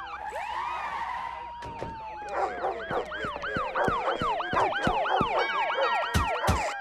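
Electronic sound effects: fast repeating rising-and-falling chirps, about three or four a second, over a slowly wavering whistle, with scattered clicks. Near the end, steady held tones join in.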